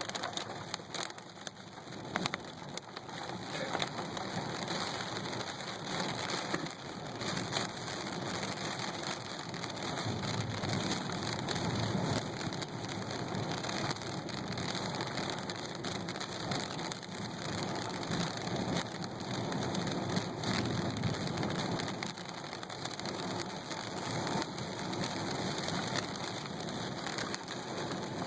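Heavy rain falling steadily during a thunderstorm, with many fine raindrop ticks. Low rumbles of thunder swell up around the middle.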